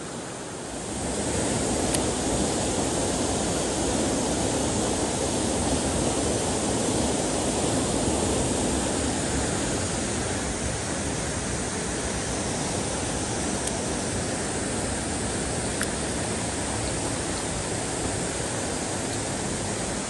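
Water of a mountain stream rushing over rocks, a steady dense rush that gets louder about a second in.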